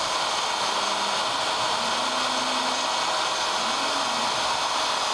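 CNC wood router spindle running and cutting parts out of an MDF sheet, a steady loud whooshing whine with a faint low hum that shifts in pitch now and then.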